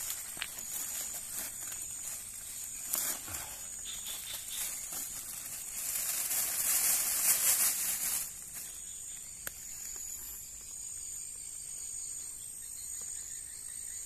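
A plastic bag rustling and crinkling as it is handled, loudest for about two seconds past the middle, with a few sharp clicks. Behind it, insects keep up a steady high drone.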